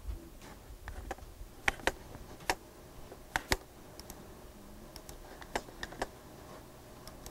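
Scattered sharp clicks from a computer being operated, about eight in all, several in quick pairs, over faint room noise.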